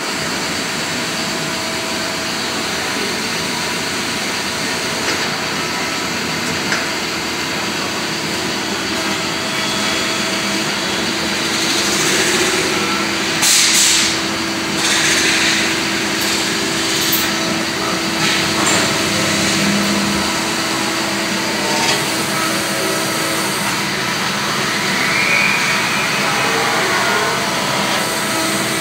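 CNC metal-spinning lathe running, its roller tool forming a spinning 1/8-inch aluminium blank over the mandrel: a steady machine drone, with a hum that comes in partway through and a few brief louder hissing swells about halfway.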